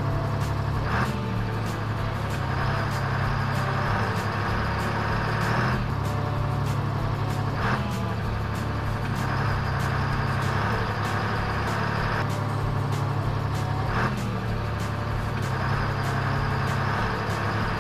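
A truck engine running steadily at idle, a low even hum with a fast rapid ticking.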